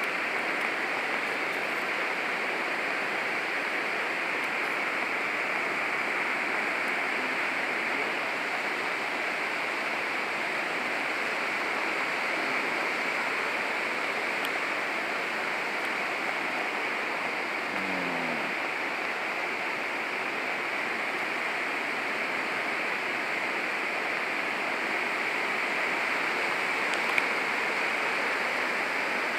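Nachi Falls, a tall waterfall, rushing steadily with an unbroken, even wash of falling water.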